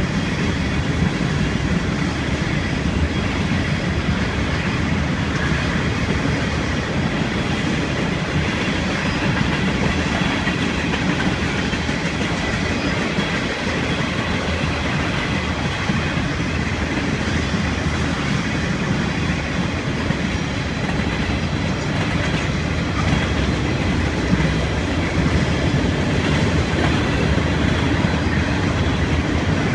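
Train rolling past, its wheels clacking over the rail joints in a continuous steady run.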